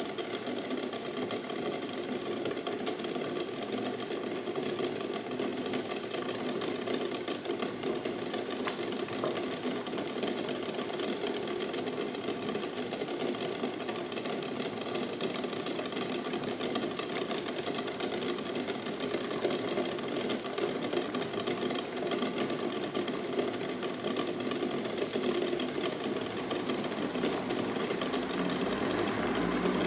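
Eggs boiling hard in a stainless steel pot: water at a rolling boil bubbling steadily, with the eggs rapidly rattling and knocking against the pot, growing a little louder toward the end.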